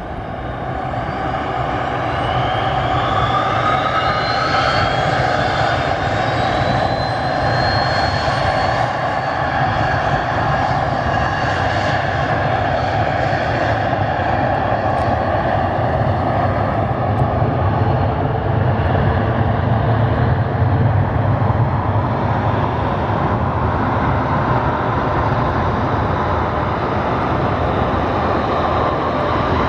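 Twin Williams FJ44 turbofans of a Cessna CitationJet CJ2+ spooling up to takeoff power, a whine rising in pitch over the first several seconds. The engines then run steadily loud through the takeoff roll, and the jet lifts off near the end.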